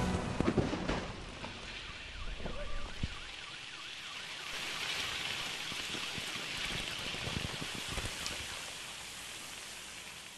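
Paint falling back down like rain: a steady spattering hiss with a few heavier splats. It fades away near the end.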